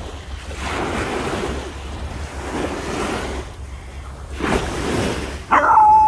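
Small waves washing up onto the sand in three surges. About five and a half seconds in, a beagle breaks into a loud, high bay, a held, wavering howl at the waves.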